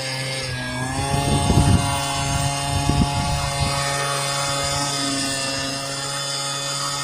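Gas leaf blower running steadily while blowing dry debris out of a gutter through an extension tube; its pitch dips and then climbs back about a second in, with low rumbling gusts of air between about one and four seconds in.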